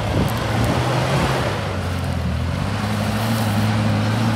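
Suzuki Vitara 4x4's engine running steadily under load as it drives slowly through snow, with a steady rushing noise alongside. The engine note shifts a little about halfway through.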